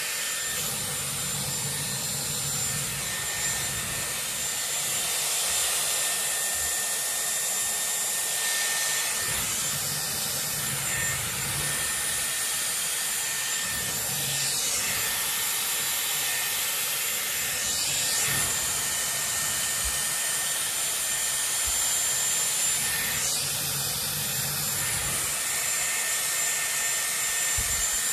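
Dyson Airwrap styler with a 30 mm curling barrel blowing steadily: a rush of air with a steady high-pitched motor whine, the airflow shifting slightly as hair is wound onto and pulled off the barrel.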